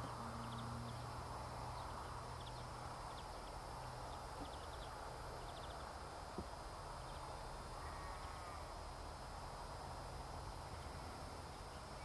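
Outdoor field ambience: a steady low hum and hiss, with faint, short high chirps of distant small birds scattered through the first half and one soft gliding call later on.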